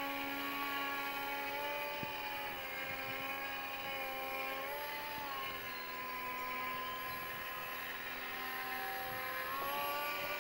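Radio-controlled swing-wing model plane's motor droning steadily as the plane flies overhead. Its pitch drops a little about five seconds in and rises again near the end.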